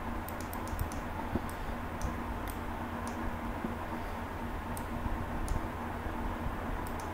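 Light, scattered clicks from someone working a computer: a quick run of about five near the start, single ones through the middle, and a few more near the end, over a steady low electrical hum.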